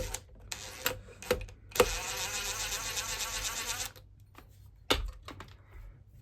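Small electric drill-driver running in two bursts, a brief one and then a steady run of about two seconds, driving screws on a vacuum motor's brush holder, with sharp clicks and knocks of handling before and after.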